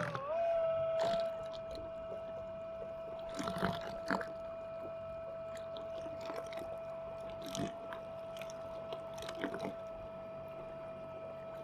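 Temo 450 electric outboard's 450-watt motor running under way with a steady high-pitched whine, rising briefly in pitch as it comes up to speed at the start, then holding level. Water splashes against the inflatable dinghy's hull every few seconds.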